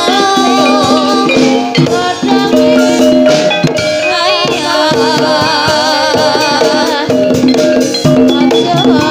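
Loud live dangdut-style jaranan music accompanying an ebeg dance: drums and percussion under a wavering, vibrato-laden melody line.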